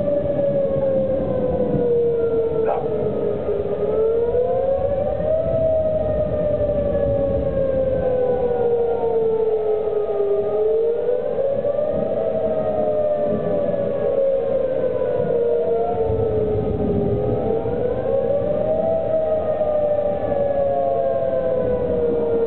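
Outdoor tornado warning siren sounding a tornado warning: a steady wail that climbs in pitch over a couple of seconds, then slides slowly down, repeating about every seven seconds.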